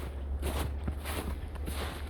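Footsteps crunching in snow at a steady walking pace, a crunch about every half second, over a steady low rumble.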